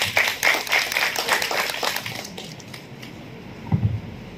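Audience applauding, a scatter of quick claps that fades away about two and a half seconds in.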